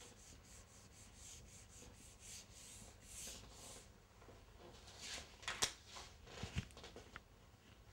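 Whiteboard eraser rubbing back and forth across a whiteboard in faint, quick repeated strokes, then a few light knocks and clicks about five seconds in.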